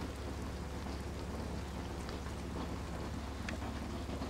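Steady outdoor background noise: an even, rain-like hiss over a constant low rumble, with a few faint ticks.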